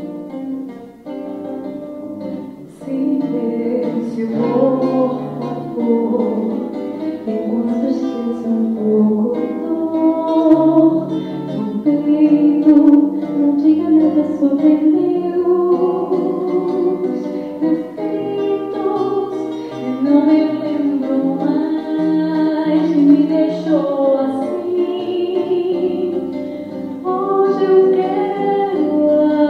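A woman singing live to an acoustic guitar accompaniment; the guitar plays alone for the first few seconds before her voice comes in.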